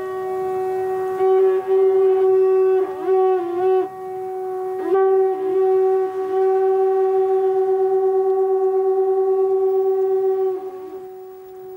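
A conch-shell trumpet blown by a young Buddhist monk sounds one long, steady, horn-like note. It wavers and breaks briefly a few times, where the player draws breath, then carries on at the same pitch.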